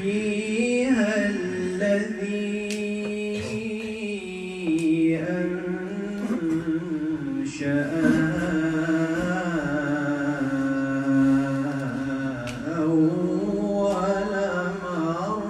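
A man's unaccompanied Qur'an recitation in tajweed style: long drawn-out melodic phrases sung in one voice, ornamented, with the pitch gliding up and down.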